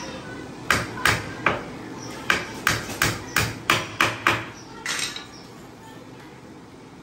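Hammer blows on wood, most likely a carpenter nailing a wooden stand together: three strikes, a short pause, then a quicker run of about seven, each with a brief ringing decay.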